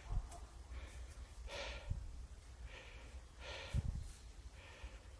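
Heavy, rough breaths or snorts about once a second, with a few dull low thumps in between.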